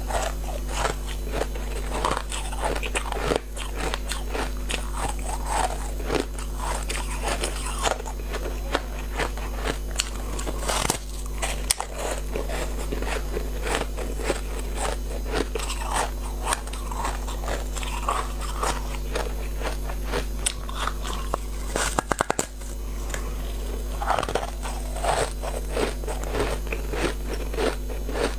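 Close-up biting and chewing of a cake of soft, powdery ice: many crisp crunches in quick succession. A steady low hum runs underneath.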